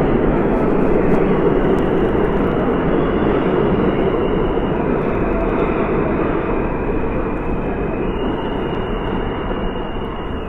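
R46 subway car running on the rails, heard from inside the car: a steady rumble of wheels and running gear with a thin high whine above it that shifts in pitch twice, easing slightly quieter near the end.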